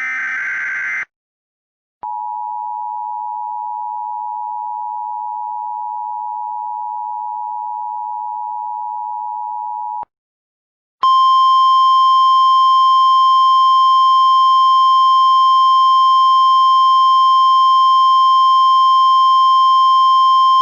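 Emergency Alert System test tones. First comes the end of a short warbling digital header burst. Then an eight-second steady two-note attention tone plays, and after a second's gap a louder, buzzier single steady tone runs for about ten seconds.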